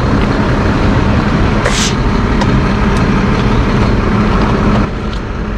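Gas station air compressor running with a loud, steady mechanical noise, with a short hiss of air a little under two seconds in as the air chuck meets the bicycle tire's valve. The running noise drops slightly near the end.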